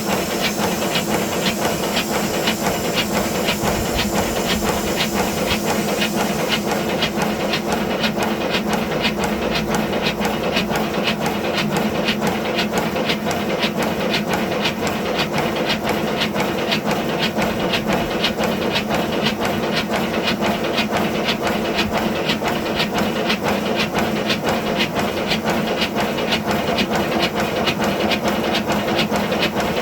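A 5-inch gauge live steam model of a BR Class 9F locomotive running on a rolling road, with fast, even exhaust beats over a steady steam hiss. The highest part of the hiss falls away about seven seconds in, while the beats carry on unchanged.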